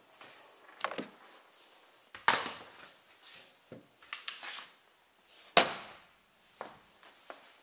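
A car bonnet being lowered and shut: several knocks and clatters, then one loud slam about five and a half seconds in as the bonnet closes.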